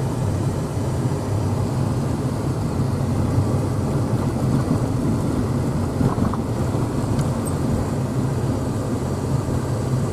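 Steady engine and tyre rumble of a vehicle driving along a mountain road, heard from inside the cab.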